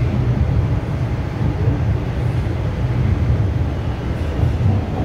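Toronto Rocket subway train running through a tunnel, heard from inside the car: a steady, loud low rumble of the train on the rails.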